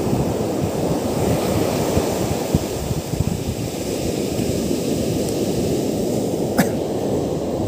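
Surf breaking and washing up a sandy beach, with wind rumbling on the microphone. A single short click about two-thirds of the way through.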